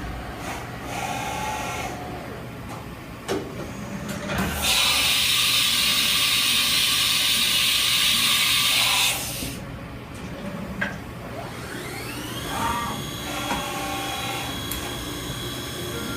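Haas VF-2 CNC vertical machining center running with a steady hum and a few clicks; a loud hiss lasts about four and a half seconds, and later the spindle spins up with a rising whine that levels off to a steady high pitch.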